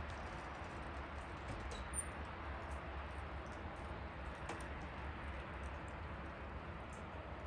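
Wood fire burning, a steady hiss with frequent small crackles and pops, and a brief high-pitched whistle about two seconds in.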